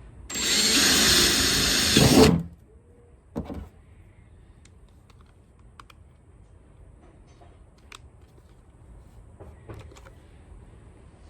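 Power drill running for about two seconds, drilling a hole in a water tank, a little louder just before it stops. A short knock follows, then a few faint clicks.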